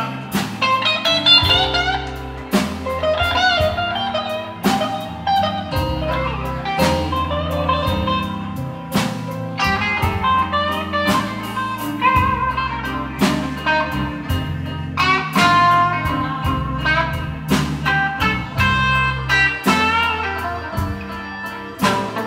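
Live blues band playing: electric guitar lines over a steady drum kit beat and a moving bass line.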